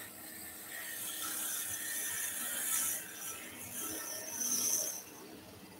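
A steel woodturning tool scraping lightly against a spinning wooden workpiece on a lathe, taking fine cuts: a thin scratchy hiss that swells over the first few seconds, then a few short rubbing strokes that die away about five seconds in.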